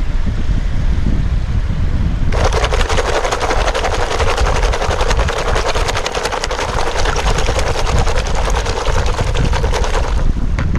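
Wild oysters swished in a plastic bucket of seawater to wash the mud off: a fast, dense rattle of shells knocking against each other and the bucket, with sloshing water, starting about two seconds in and stopping near the end. Wind rumbles on the microphone throughout.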